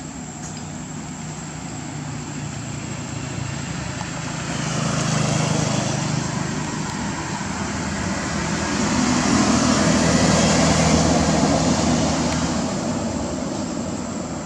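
Road vehicles passing: a rushing noise with a low engine hum swells to a peak about five seconds in, then a second, louder pass builds and fades away near the end.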